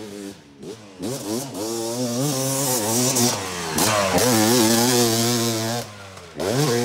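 Yamaha YZ250 two-stroke dirt bike engine revving up and down through the gears as the bike rides past, loudest as it goes by close at about four to six seconds in, then revving hard again near the end as it climbs the step-up jump.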